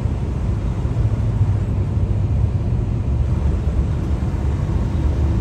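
Steady low rumble of a truck driving at freeway speed: engine drone and road noise heard inside the cab.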